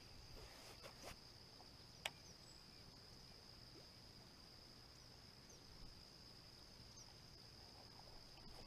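Faint, steady high-pitched insect trilling, crickets or similar, with two or three sharp clicks in the first couple of seconds.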